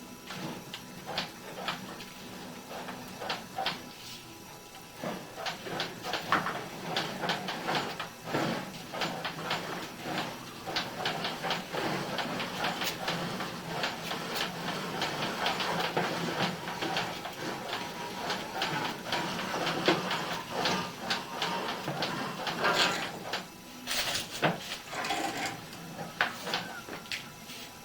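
Water running out of an open drain pipe tee and splashing where it collects, a dense, uneven patter of splashes and drips that grows busier through the middle and eases off near the end.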